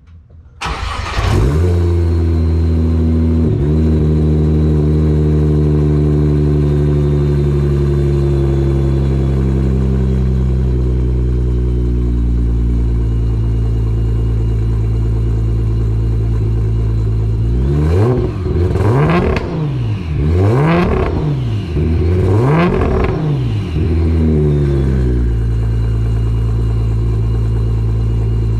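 Nissan GT-R's twin-turbo 3.8-litre V6, built to 1700 hp with an ETS turbo kit and a 4-inch Switzer exhaust, cranks and fires about a second in. It then runs at a high cold-start idle that slowly settles lower over about ten seconds. From around eighteen seconds in it is revved in a few quick blips before dropping back to a steady idle.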